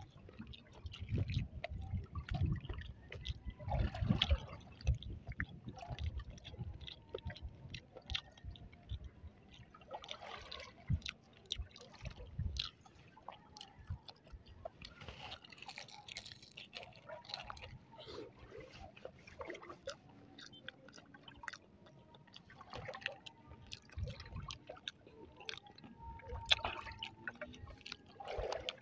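Close chewing of crispy breaded, deep-fried balut: wet, squishy mouth sounds with many short crackles from the crust, going on in irregular bouts.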